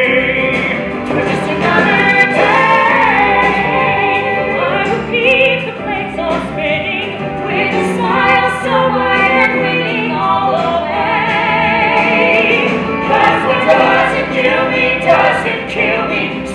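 Several voices singing a musical-theatre number together over band accompaniment, with held, wavering notes.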